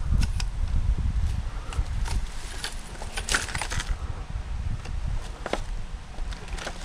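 Scrap metal being handled: scattered light metallic clicks and a cluster of rattles about a third of the way in, over a steady low rumble.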